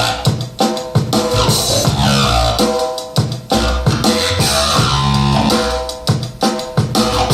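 Music with a driving drum kit beat, bass drum and snare, deep bass and guitar, played back over loudspeakers.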